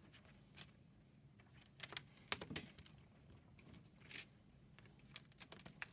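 Scattered light clicks and taps of plastic LEGO pieces being handled and pressed onto plates, with a quick run of clicks about two seconds in and more near the end.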